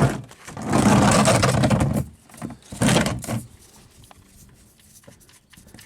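Ratchet wrench with a 15 mm socket working loose an overtightened oil drain plug: two spells of rapid ratcheting, the first about a second and a half long, the second shorter, followed by small clicks.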